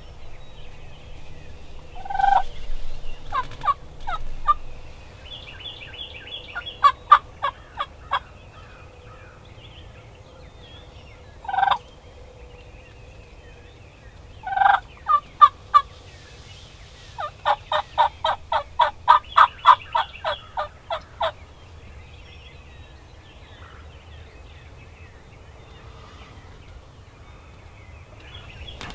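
Wild turkey calls: several loud single notes and short rapid runs of notes, then a long, even run of about twenty notes at roughly five a second, two-thirds of the way in.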